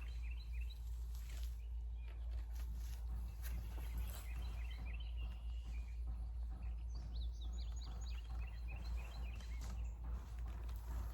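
Small birds chirping and twittering repeatedly over a steady low outdoor rumble, with occasional soft rustles from hands digging through soil for potatoes.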